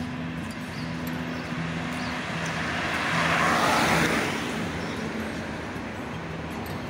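A car passing by on the street, its noise swelling to a peak about three to four seconds in and then fading away.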